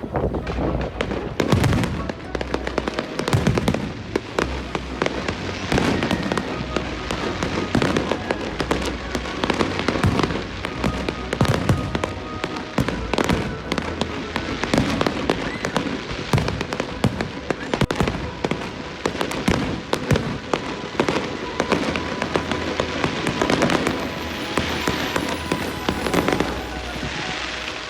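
Fireworks display: a dense, continuous run of bangs and crackles, with music playing underneath.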